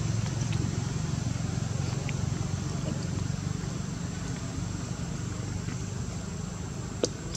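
A steady low hum like a motor running, with a few faint ticks and one sharp click near the end.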